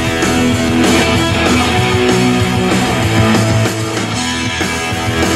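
Rock music with guitar and heavy bass played loud through the van's custom car audio system.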